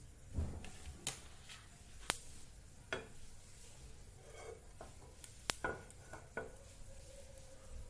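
Oil heating in a frying pan on a gas stove: faint, scattered sharp ticks and crackles, about half a dozen over the stretch.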